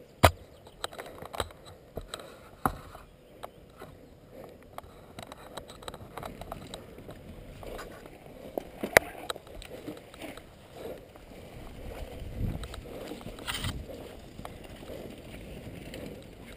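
A mountain bike being pushed by hand through long grass: footsteps and grass rustling, with sharp clicks and knocks from the bike.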